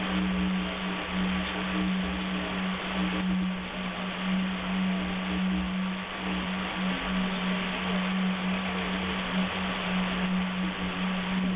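Shortwave radio reception: a steady low buzz held without a break, over loud hiss of static with a faint thin higher tone.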